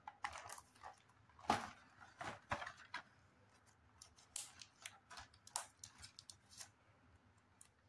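Scissors snipping and plastic shrink wrap crinkling as the wrap is cut and pulled off a cardboard gift box: faint, irregular snips and rustles, loudest about a second and a half in.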